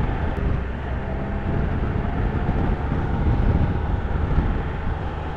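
Triumph Trophy 1200SE's inline three-cylinder engine running steadily at cruise, with wind and road noise.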